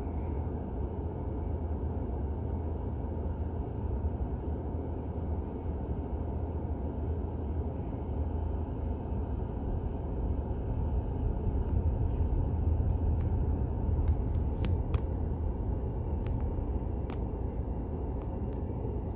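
Steady low rumble with no clear pitch, with a few faint clicks near the end.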